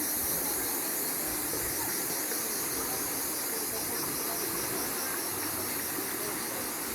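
Steady outdoor ambience: an even hiss with a high, pulsing chirr over it.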